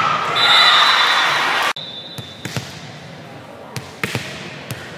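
Loud gym crowd noise with a referee's whistle blowing for about a second and a half, ending a volleyball rally. The noise cuts off abruptly, and a volleyball bounces several times on the hardwood gym floor as the server readies to serve.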